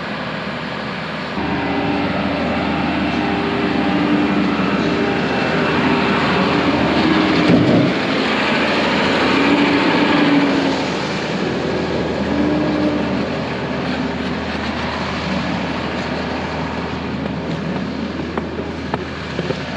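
A heavy engine running steadily, growing louder a little over a second in, its pitch shifting up and down as if revving under load.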